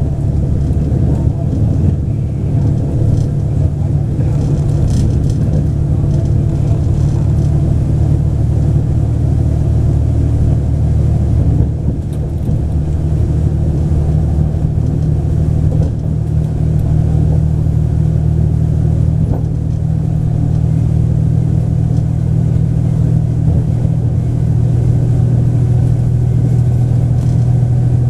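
Diesel engines of a Taiwan Railways DR3000 diesel multiple unit running under way, heard from inside the train as a steady low drone. The engine note shifts about halfway through and a stronger hum holds toward the end.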